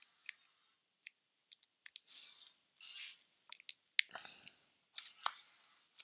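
Small plastic case and packaging being handled: a scatter of sharp clicks and taps with short bursts of rustling.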